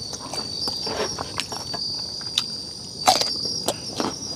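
Night insects chirring steadily at a high pitch, under irregular crunching clicks from a mouthful of raw green pepper being chewed, the loudest crunch about three seconds in.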